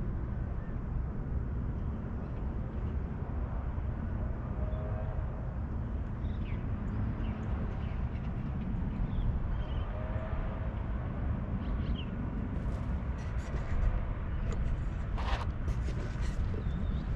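Outdoor ambience: a steady low rumble, with a few faint chirps and, in the second half, scattered light clicks.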